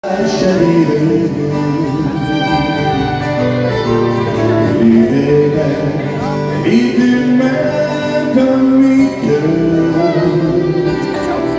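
Live acoustic country music: several acoustic guitars strummed together while a fiddle plays the melody in long, sliding notes.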